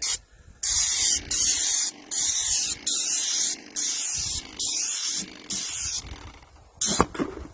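Paint sprayer spraying in short trigger bursts, each a half-second or so of high hiss, cut on and off about eight times. There is a sudden loud knock near the end.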